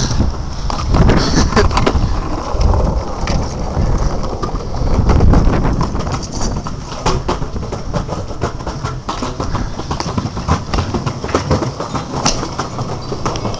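Longboard wheels rolling on a concrete sidewalk, a continuous rumble broken by frequent sharp clicks and clacks.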